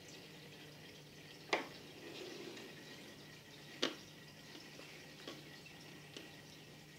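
Aquarium water bubbling and trickling, with a faint steady hum under it. Sharp drip-like plinks break through it: two loud ones about a second and a half and about four seconds in, and a few softer ones later.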